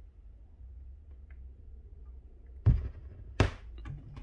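Mechanism of a BSR P157 automatic turntable clunking, two knocks about three-quarters of a second apart, over a steady low hum once the record has stopped playing.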